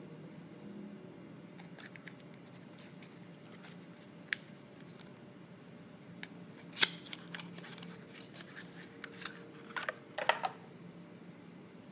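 Small cardboard nail polish box being handled and opened, the bottle taken out: scattered clicks and taps, the sharpest about seven seconds in and a quick cluster near ten seconds.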